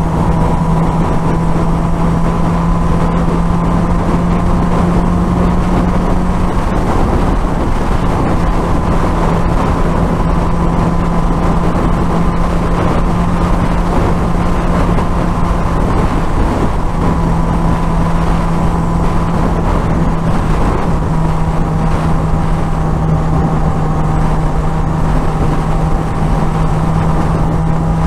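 Suzuki GSX-R1000 motorcycle engine running at a steady cruise, holding an even drone with little change in revs, under heavy wind noise on the microphone.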